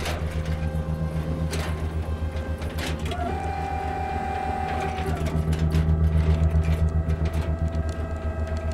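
Mechanical sound effects of robotic lab machinery: a steady low humming drone with a whirring whine that jumps higher in pitch about three seconds in, and scattered sharp clicks.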